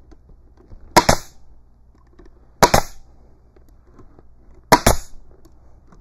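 Pneumatic stapler firing staples into wooden boards: three sharp shots about two seconds apart, each a quick double crack.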